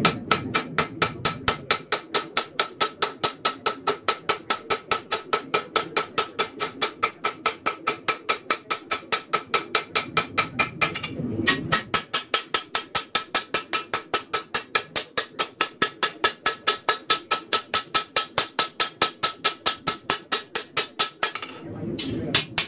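Hand hammer striking a hot 1084 high-carbon steel knife blade on an anvil, steady blows at about four a second, each with a bright anvil ring. The blows pause briefly about eleven seconds in, then resume and stop near the end.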